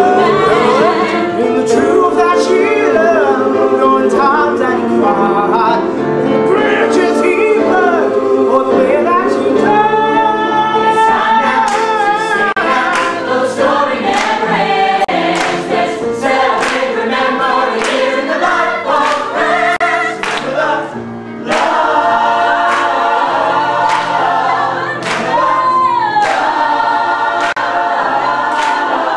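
A choir of many voices singing a gospel-style song together. Through the middle there is a steady beat of sharp hits, about two a second.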